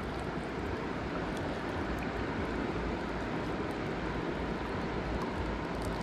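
Steady rushing of river water.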